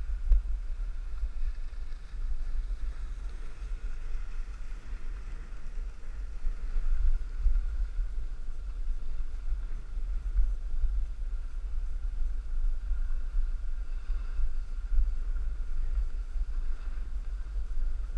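Wind buffeting the microphone of a point-of-view camera while riding downhill on snow: a steady, gusting low rumble.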